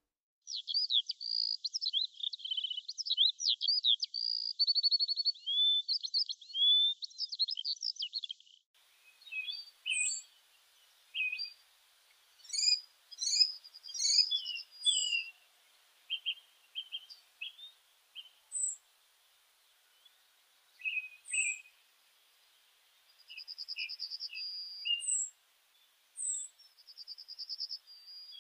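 Songbirds singing: a fast, continuous warbling song for about eight seconds that cuts off abruptly. After it come scattered chirps, high single notes and a couple of short trills.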